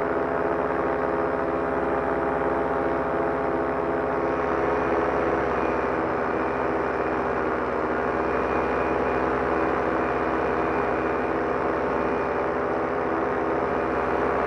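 Solo 210 single-cylinder two-stroke paramotor engine, swinging a 124 cm propeller, running steadily in flight with no change in pitch or level.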